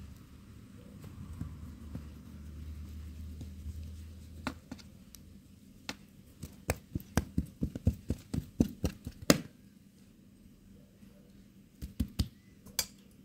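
A quick run of sharp knocks, two or three a second for about five seconds, then a few more near the end, after a low rumble at the start.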